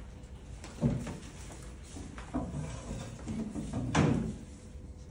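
Handling noise: a few dull knocks and shuffles as a person walks up to a small lectern table and sets papers and a phone down on it, the loudest knock about four seconds in.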